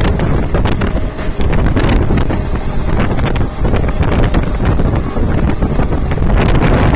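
Moving passenger train heard from on board: a steady low rumble of the coach running on the track, with wind buffeting the microphone.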